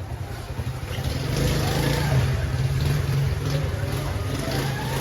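A motor vehicle's engine running close by, growing louder about a second in, with voices faintly underneath.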